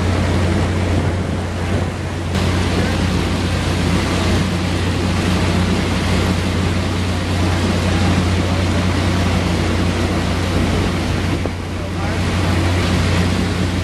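Fishing boat's engine running with a steady low hum, under a rushing of water and wind on the microphone.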